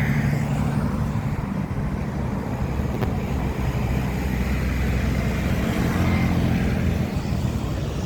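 Heavy truck's diesel engine running with a deep, steady drone that shifts in pitch about five seconds in.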